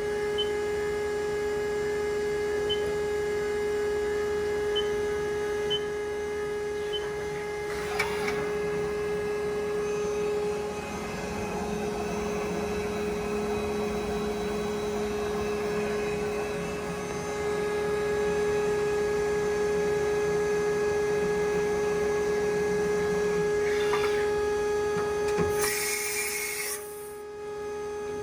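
2010 Haas OM-2A CNC vertical mill running, a steady high-pitched whine over a mechanical hum. A short sharp click comes about eight seconds in, and a loud hiss lasting about a second and a half comes near the end.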